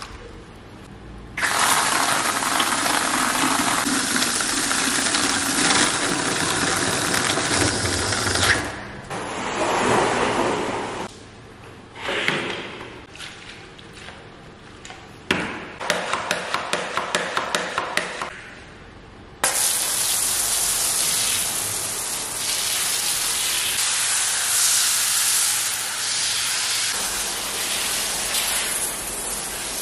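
Liquid rushing steadily into a wheel-cleaning bucket. Then a hand-pump foam sprayer is pumped up in a run of quick strokes, about four or five a second. From about two-thirds of the way in, it sprays foam onto a car wheel with a steady hiss.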